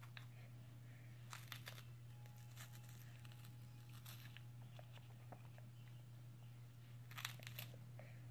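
A baby biting and chewing a Happy Baby teething wafer: faint crisp crunches and mouth clicks in three clusters, the loudest near the end, over a steady low hum.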